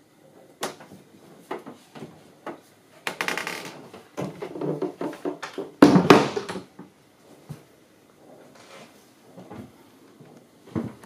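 Knocks, bumps and rustles of someone moving through a yacht's cabin, with two louder scraping bursts about three and six seconds in.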